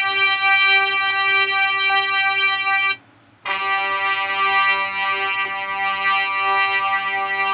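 Software synthesizer in Logic Pro 9, played from a MIDI keyboard: one held note that stops about three seconds in, then after a short gap a second held note whose upper tone pulses and wavers.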